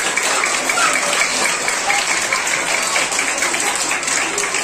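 Steady applause from a roomful of people, many hands clapping at once.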